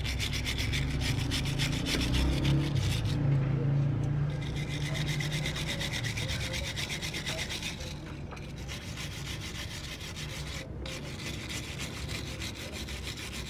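A stiff wooden-backed wire brush is scrubbed hard over the wet cylinder and head of a Honda CD70 engine in rapid back-and-forth strokes. The scrubbing pauses briefly about three, eight and eleven seconds in.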